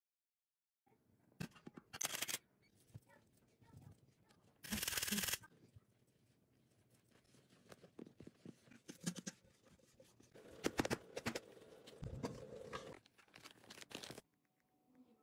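Faint, scattered rustling and scraping of hands working on sponge cake layers and of a spoon stirring a thick chocolate cream in a pot, with a brief louder rustle about five seconds in.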